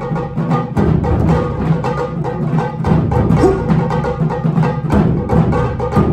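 Dramatic recorded music: bowed strings and orchestral sounds over a dense, driving drum beat.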